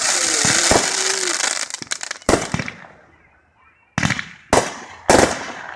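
Consumer fireworks going off: a dense crackling with sharp bangs through the first two seconds, then after a brief lull three loud reports about half a second apart near the end.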